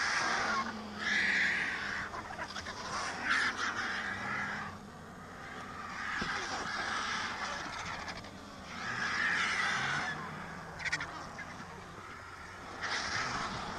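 Griffon and cinereous vultures squabbling over a carcass, giving hoarse hissing calls in bursts of a second or so, about six times.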